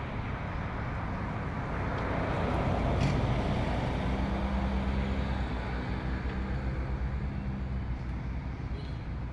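Motor vehicle engine running. The noise swells to its loudest about three seconds in, then a steady low hum holds for several seconds.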